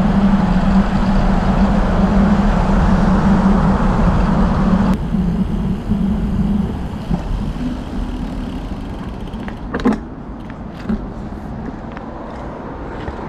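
Wind and tyre noise on a handlebar-mounted camera as a road bicycle coasts, dropping suddenly to a quieter rush about five seconds in as the bike slows. A few clicks and knocks come near the end as it comes to a stop.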